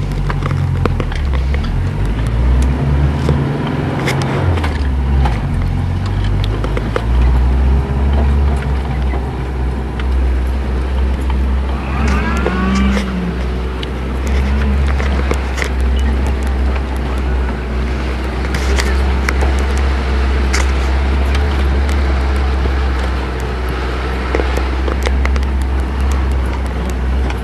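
Toyota truck's engine running while driving off-road, heard from on board. The engine note changes over the first several seconds, then holds steady, with scattered knocks and rattles.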